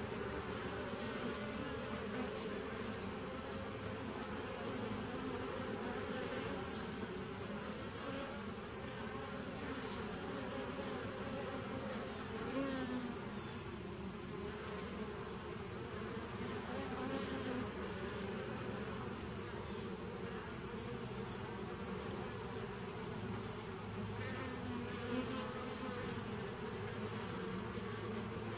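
Honey bees buzzing at the entrance of a nucleus hive: a steady hum of many bees. Now and then a single bee passes close, its buzz rising and falling in pitch.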